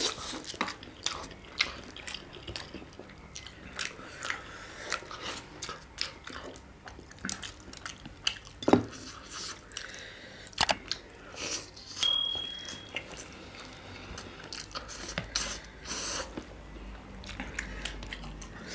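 Two people eating noisily: slurping noodles and chewing with open mouths, with many irregular wet smacks and clicks.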